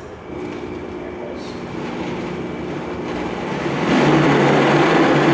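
Vitamix blender motor starting up and blending a jar of frozen bananas, kale, almond milk and honey, growing steadily louder as it speeds up, then stepping up sharply in loudness about four seconds in.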